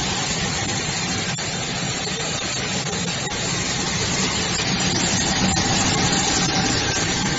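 A 37 kW PVC pulverizer line running, grinding PVC to powder: loud, steady machine noise with a low hum and a faint higher whine that stay even throughout.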